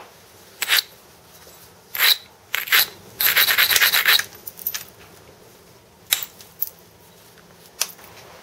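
Flint being pressure-flaked against a leather glove: several sharp clicks of flakes snapping off the edge, and about three seconds in a second-long run of rapid scraping of the tool along the edge.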